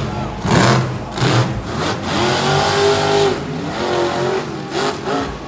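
Monster truck's supercharged V8 revving hard in short bursts, then held high for about a second before the pitch drops back, with more quick revs near the end as the truck spins and launches off a jump.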